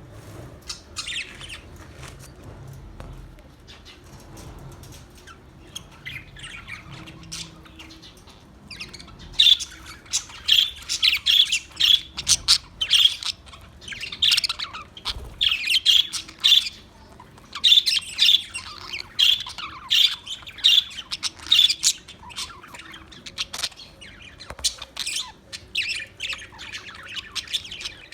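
Parrots squawking and chirping in a rapid run of short, shrill calls that grows much louder and busier about nine seconds in.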